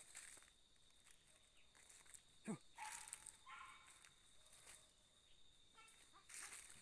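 Faint footsteps rustling through leaf litter and undergrowth, with a short animal cry falling steeply in pitch about two and a half seconds in and a few fainter calls just after it.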